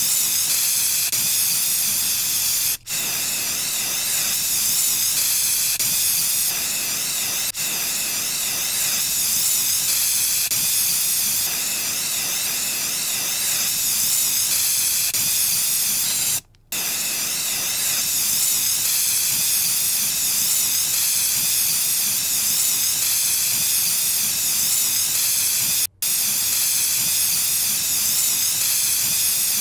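Aerosol spray paint can spraying with a steady hiss. It is broken a few times by short gaps, the longest about halfway through.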